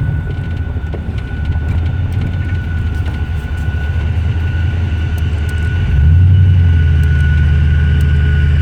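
Cammed 6.0-litre LS V8 running, with the rod knock the owner blames on a bad job from the shop; it gets louder about six seconds in.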